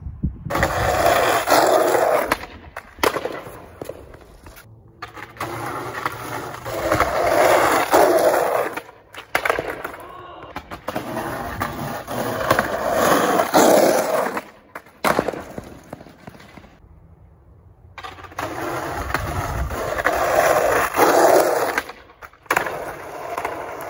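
Skateboard wheels rolling over rough, cracked asphalt in several separate runs that cut off suddenly, with sharp clacks of the board popping and landing during flip tricks.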